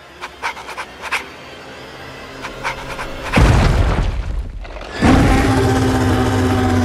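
Film-trailer sound design: a few sharp ticking clicks over a low drone, then a deep boom hit about three and a half seconds in. From about five seconds a giant ape monster gives a loud, held roar.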